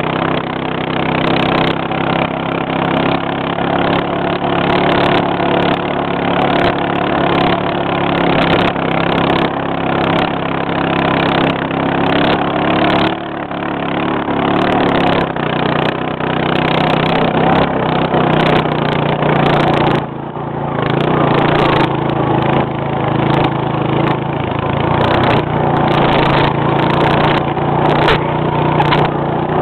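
A small engine running steadily, with brief changes in load about 13 and 20 seconds in.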